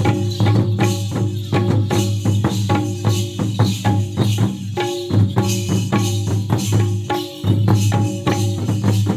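Several madal, barrel-shaped two-headed folk hand drums, played together in a fast, steady dance rhythm, with a steady low hum under the strokes that drops out briefly twice.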